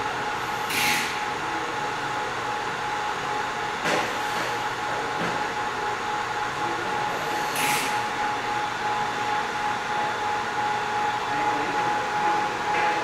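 ZM-R720 BGA rework station's hot-air blower running steadily through a heating profile: an even rush of air with a steady whine. Three short hisses come about one, four and eight seconds in.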